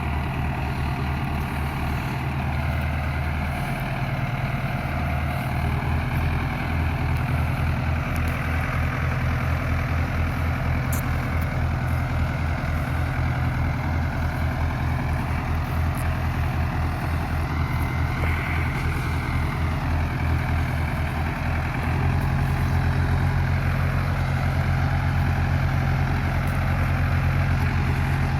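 Diesel engine of a SAME Explorer II tractor running with a low, pulsing throb. About 22 seconds in it becomes louder and steadier.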